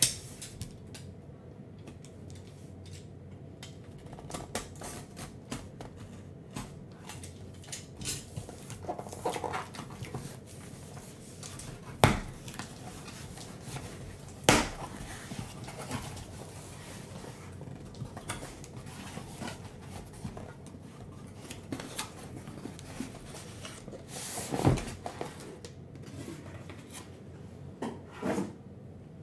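A cardboard case being opened by hand and the shrink-wrapped card boxes inside taken out and set down: scattered rustles and knocks, with a few sharp clicks and one louder thump about 25 seconds in.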